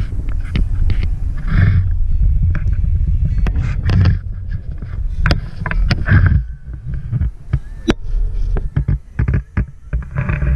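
Car on the move: a loud, steady low rumble of road and wind noise, broken by many sharp knocks and clicks.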